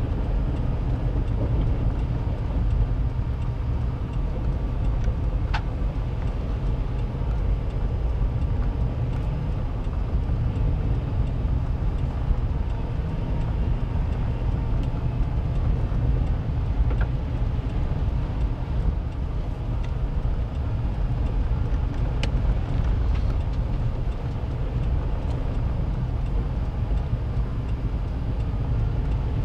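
Steady low rumble of a vehicle driving at moderate speed, tyre and engine noise heard from inside the cab, with a few faint ticks now and then.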